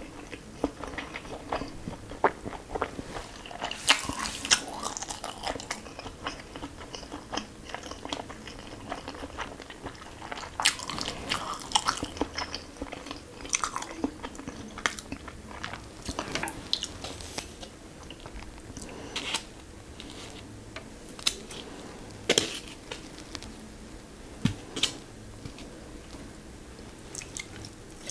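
Close-miked chewing and biting of food, with irregular sharp wet clicks and crunches.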